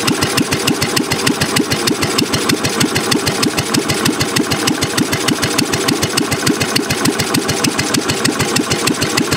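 1957 Cushman Husky single-cylinder engine idling with a slow, even beat of firing pulses.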